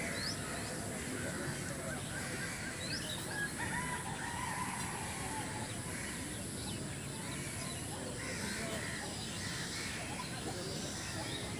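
Birds calling: scattered short rising chirps and a few lower calls over a steady outdoor background hiss.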